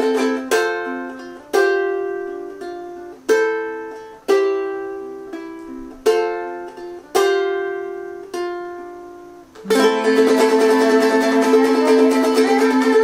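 Ukulele playing the ending of a pop song: a string of arpeggiated F, G7 and Am chords, each struck and left to ring and fade, then about ten seconds in a fast tremolo strum on a held Am chord.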